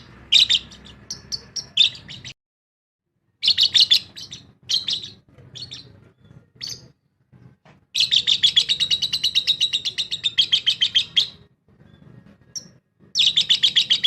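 Lovebirds chattering in quick, high-pitched chirps, with a long fast run of chirps lasting about three seconds starting some eight seconds in and another short run near the end.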